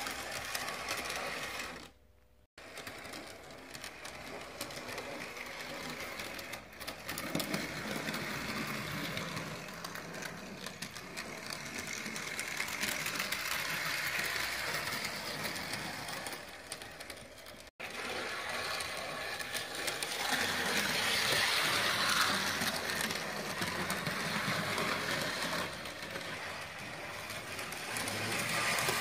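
HO scale model trams running on their track, their small electric motors and wheels making a steady whir. The sound cuts out briefly about two seconds in and again near the middle.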